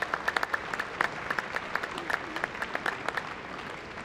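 Indoor arena audience clapping as a dog is gaited around the ring, dense at first and thinning out near the end.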